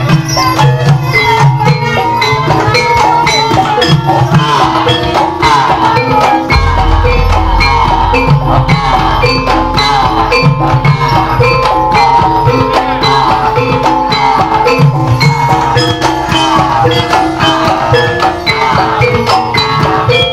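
Javanese gamelan music: bronze metallophones ringing out a steady, repeating melody over drumming. A low rumble joins about six seconds in.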